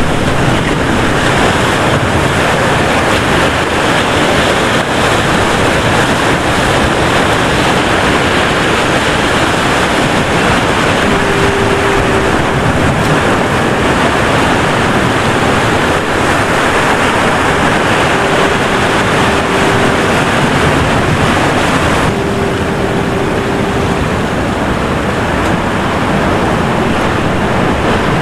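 Ocean surf breaking against jetty rocks, with wind on the microphone: a loud, steady rush. A short steady hum sounds three times in the second half.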